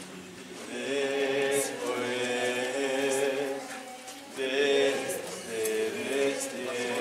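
A group of voices singing a slow religious chant with long held notes, starting about a second in, breaking off briefly near the middle and then going on.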